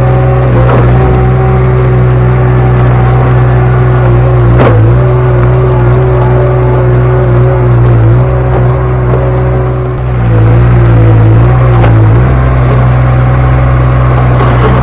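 Derette V1000 mini skid steer's engine running steadily at working throttle, its pitch sagging briefly a few times as the hydraulics load it. There is a sharp knock about five seconds in.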